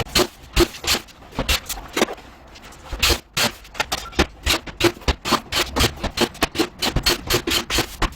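Irregular series of sharp clicks and knocks, a few per second, with a short quieter gap partway through.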